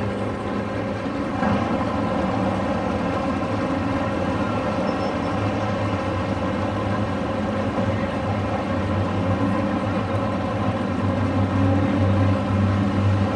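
Two performance cars idling together at the start line, a Jeep Grand Cherokee SRT8's HEMI V8 and a Lamborghini, a steady low engine note that swells slightly near the end.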